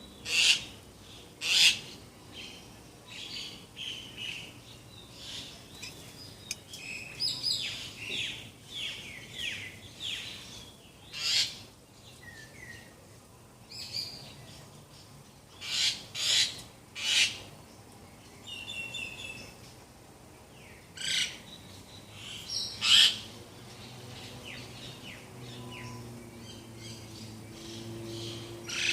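Birds calling and chirping: loud, short, sharp calls every few seconds over softer twittering and brief trills. A faint low hum comes in near the end.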